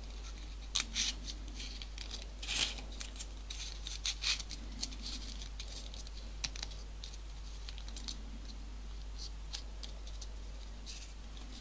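Folded paper units of a modular origami model being handled and pushed into place: scattered light paper rustles and small clicks.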